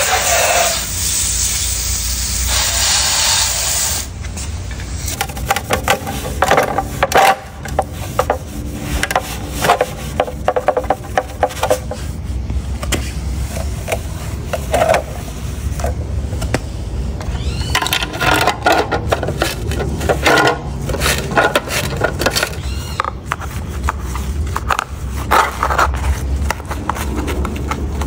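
Garden-hose spray hissing onto plastic fan parts for the first four seconds or so, then a wet sponge scrubbing the plastic housing and fan blade in short, irregular rubbing strokes over a steady low hum.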